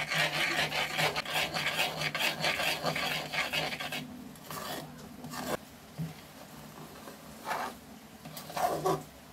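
Metal spoon scraping and stirring milk powder with ghee and milk in a metal kadai. There is dense, fast scraping for about four seconds, then quieter, occasional strokes as the powder wets into a soft paste.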